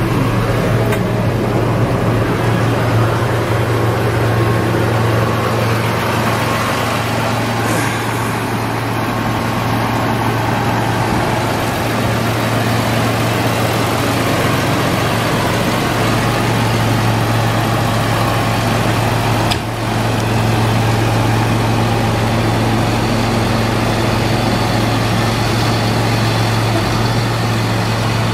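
John Deere 8320R tractor's 9.0 L six-cylinder diesel engine running steadily with a constant low hum.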